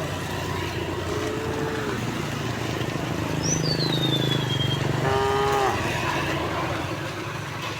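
Cows mooing: two long moos, one about a second in and another about five seconds in. Between them there is a low steady drone and one short high whistle that falls in pitch.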